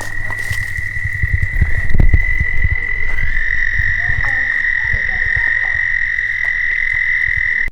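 Toads trilling: one long, steady, high trill, joined about three seconds in by a second, slightly lower trill, with low knocks and thumps underneath. Both cut off suddenly at the end.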